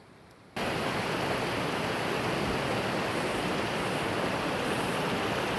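Steady rush of a fast-flowing mountain stream, cutting in abruptly about half a second in and then holding even.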